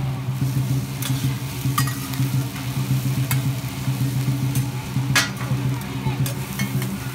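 Two metal spatulas scraping and clinking on a large flat griddle as a crispy shellfish omelette (hoy tod) fries and sizzles. Sharp clinks come every second or so, the loudest a little past halfway, over a steady low hum.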